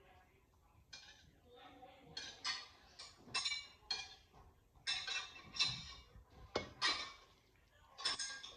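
A spoon scraping and clinking against a metal pan as cooked spaghetti is tossed and stirred, in a series of short, uneven scrapes.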